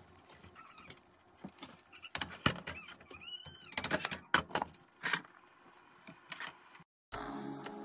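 Silicone-tipped kitchen tongs clicking and scraping against a nonstick frying pan as pork steak and onions in sauce are turned, with a string of sharp knocks and one short squeak; a glass lid is set on the pan. After a brief cut near the end, background music starts.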